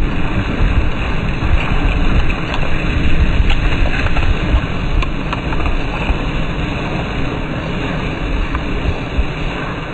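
Mass of burning matches going up in large flames: a steady fire roar with a few scattered crackles and heavy wind buffeting on the microphone, easing slowly toward the end.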